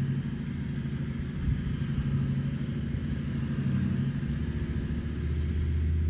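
V8 LandCruiser engine running steadily at low revs as it crawls up a steep track in first gear, low range, with the rear locker engaged. There are a couple of knocks about a second and a half in, and the engine note drops lower about five seconds in.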